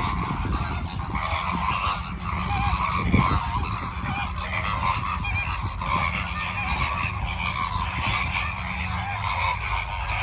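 A flock of greater flamingos honking and chattering, many overlapping goose-like calls with no break, over a steady low rumble.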